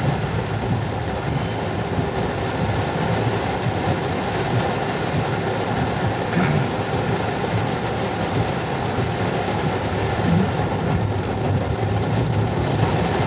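Heavy rain drumming on a car's roof and windshield, heard from inside the cabin, with the car's engine and tyres on the wet road underneath; a steady, even noise.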